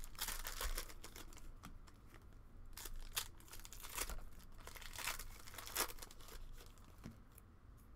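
Plastic trading-card packaging crinkling and tearing in irregular bursts as sealed boxes or packs are opened by hand, dying away near the end.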